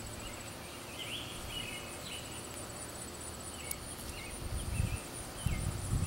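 Insects trilling steadily in a high, even pulse, with scattered short chirps over it. A few low bumps come near the end.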